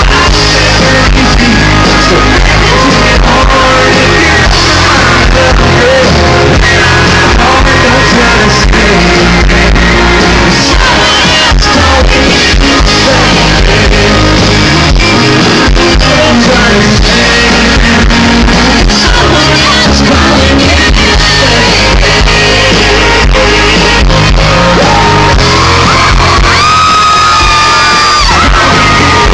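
Live country band playing loud with a sung lead vocal, with shouts and whoops from the crowd mixed in.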